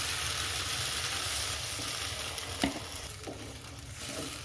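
Fried spice paste sizzling in a hot kadai as water goes in, the sizzle easing off over a few seconds. A sharp metallic clink, like a spoon against the pan, about two and a half seconds in.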